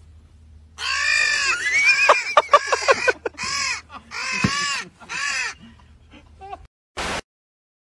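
A series of loud, harsh crow caws, about half a dozen calls over some five seconds, followed by a short burst of noise about seven seconds in.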